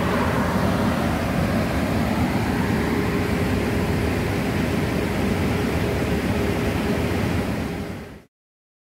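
Amtrak passenger train cars rolling past a station platform, a steady rush of wheel-on-rail and car noise. It fades out and stops about eight seconds in.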